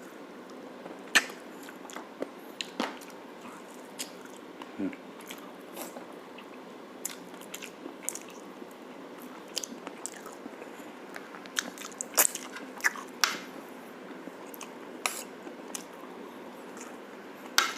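Close-miked chewing and mouth sounds of someone eating braised pork shank (pata tim), with irregular wet smacks and sharp clicks.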